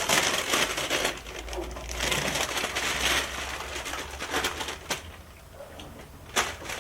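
Masking tape being peeled off a painted car panel and crumpled: a dense crackling rip for the first few seconds, then sparser crinkles and a sharp click near the end.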